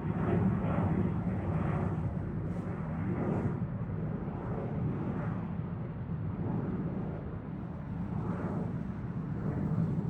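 Cessna Citation CJ4 business jet's twin Williams FJ44 turbofans at takeoff power: a steady low jet rumble that wavers in loudness.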